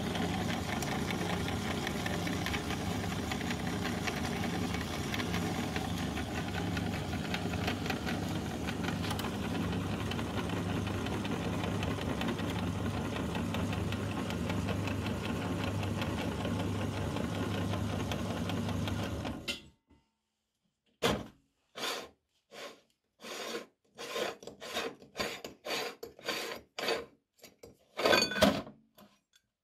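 Electric meat grinder's motor running steadily with a low, evenly pulsing hum as cake is forced through the cutting plate; it cuts off about two-thirds of the way through. Then a string of short metal clicks, knocks and scrapes as the grinder's plate and retaining ring are handled and unscrewed.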